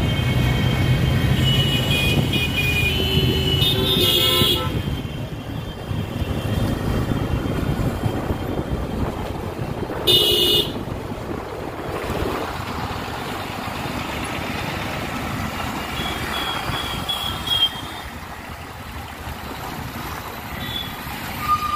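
Busy city road traffic heard while riding: engine and road noise throughout, with vehicle horns honking. There is a long horn over the first few seconds, a loud blast about ten seconds in, and a few short beeps near the end.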